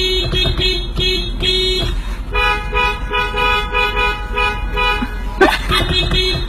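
Novelty vehicle horn sounding in a rhythmic run of short honks, then a longer stretch of several tones held together, a quick pitch sweep about five and a half seconds in, and short rhythmic honks again, over a steady low rumble.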